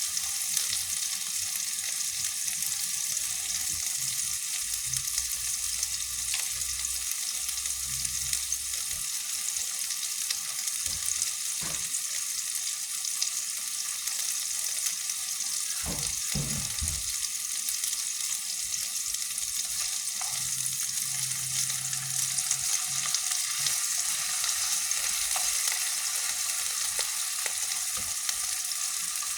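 Chicken meatballs frying in hot oil: a steady sizzling hiss, with a few soft knocks near the middle.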